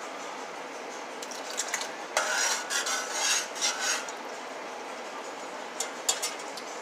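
Metal spoon stirring beans and broth in a metal pot, scraping and clinking against the pot for about two seconds, then a couple of short clinks near the end.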